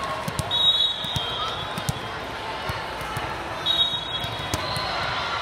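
Two shrill referee whistle blasts, each about a second long, the first about half a second in and the second near the four-second mark. Under them are the thuds of volleyballs being hit and bounced, and voices chattering in the hall.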